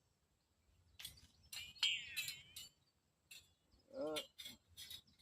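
Light metallic clinks and knocks as a steel sawmill band is handled and pulled off its wheels, with a brief high squeal of the band about two seconds in.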